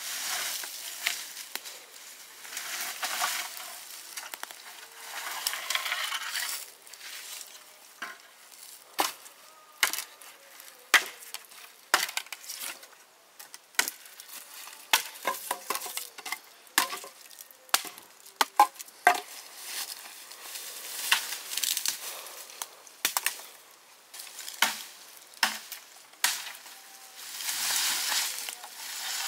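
Food frying and sizzling in a pan while it is stirred. The utensil clicks and knocks against the pan many times through the middle. The sizzle is strongest at the start and again near the end.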